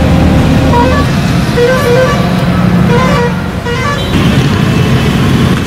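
Motor vehicle running close by, a low steady hum, with a string of short horn notes at different pitches, like a musical horn tune, over the first few seconds.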